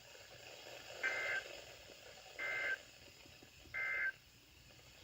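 Three short EAS End-of-Message data bursts (SAME tones) from a NOAA Weather Radio broadcast, each about a third of a second of two alternating tones near 1.5 and 2 kHz, spaced about 1.3 s apart over faint radio hiss. They mark the end of the warning message.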